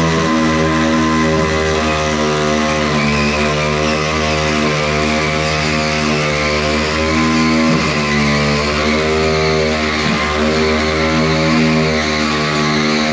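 A vehicle engine running at a steady speed, its pitch wavering slightly a few times.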